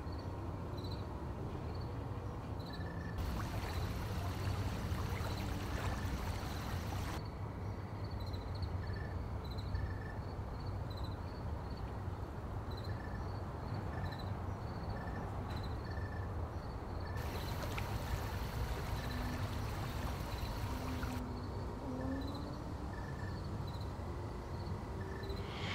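Steady outdoor ambience: a low, even hiss and rumble with short high chirps repeating every second or so. Twice a brighter hiss cuts in and then cuts off abruptly after a few seconds.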